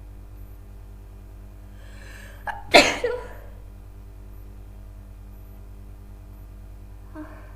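A woman's loud, unstifled sneeze about three seconds in: a short breathy intake, a brief catch, then one sharp sneeze that dies away within half a second. She has a head cold and is congested.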